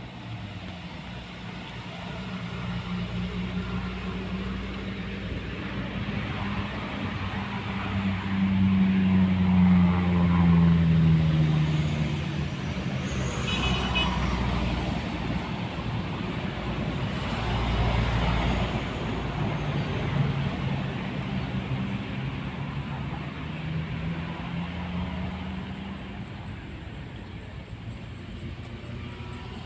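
Road traffic passing close by: car and truck engines swelling and fading one after another. The loudest vehicle goes past just before halfway, its engine pitch dropping as it passes, and a short high beep is heard soon after.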